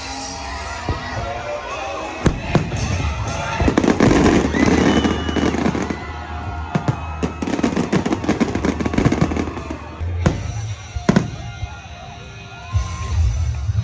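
Aerial fireworks display: repeated bangs and bursts of crackling, densest in the middle, with music playing underneath.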